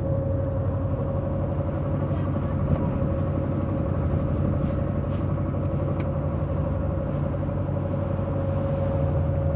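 Small fishing boat's inboard engine running steadily under way: a constant low drone with a steady whine above it.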